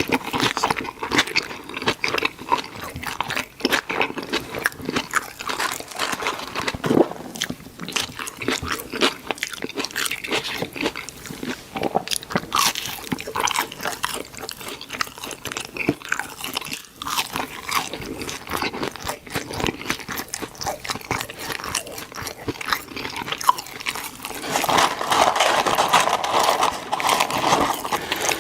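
Close-miked chewing and biting of fast food, with steady crunching and crackling mouth sounds throughout and a louder, denser stretch near the end.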